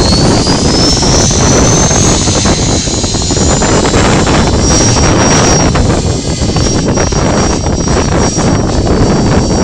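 Align T-Rex Pro radio-controlled helicopter spooling up, its high whine rising over the first two seconds and then holding steady. Heavy wind buffets the microphone throughout.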